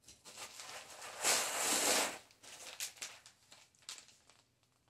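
The end of a cardboard shipping box being torn open: a ripping sound lasting about a second, then scattered rustling and crinkling of the plastic wrapping with a few light clicks.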